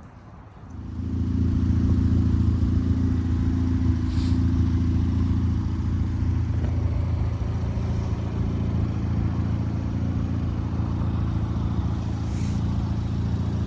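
Ford Fiesta ST's 1.6-litre turbocharged four-cylinder engine starting about a second in and settling into a steady idle.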